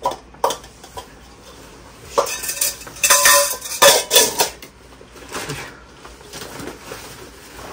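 Snow Peak metal camping pot and a small gas canister clinking and clanking as they are handled and packed together. There are two sharp clicks at the start, then a busy run of metallic clanks with brief ringing from about two seconds in to four and a half seconds. Softer handling noise follows near the end.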